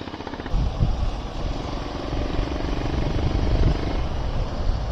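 Honda CB350RS's single-cylinder engine ticking over, then pulling away about half a second in and accelerating, with wind buffeting the microphone.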